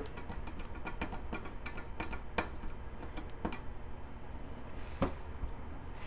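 A few light, separate clicks and taps of metal conduit parts and hand tools being handled and set down on a workbench, the clearest about two and a half seconds in and again near the end, over a low steady hum.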